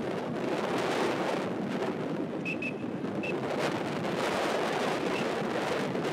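Steady open-air ambience: a wash of wind on the microphone with distant traffic. A few faint short high peeps sound around the middle.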